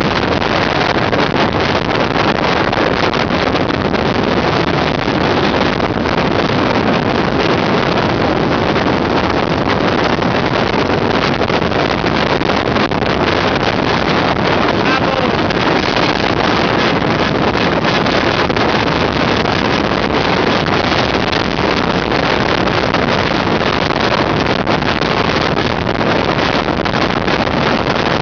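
Steady rush of wind buffeting the microphone of a moving vehicle, with road and engine noise underneath.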